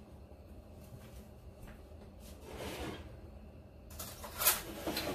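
Kitchen handling noises over a low steady hum: a soft rustle near three seconds in, then a few knocks about four seconds in, one of them sharp and much louder than the rest.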